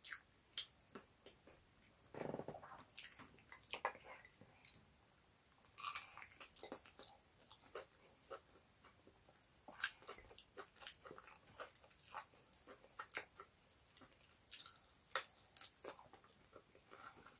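Close-miked eating sounds: soft, wet chewing with many short clicks and smacks of the lips and mouth as boiled yam in tomato stew is eaten by hand.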